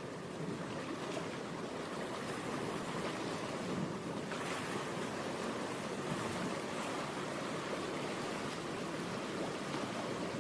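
A steady, surf-like rushing noise that grows a little brighter about four seconds in.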